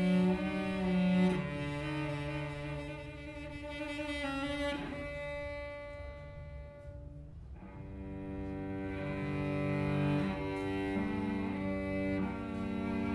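Cello playing slow, long bowed notes that change every few seconds, growing softer around the middle and then swelling again.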